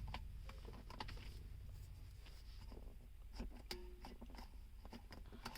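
Faint scattered clicks and scraping of a paper cut-out seat belt tongue being pushed into a car seat belt buckle. The worn paper tongue no longer works as before, because it has got a little beat up.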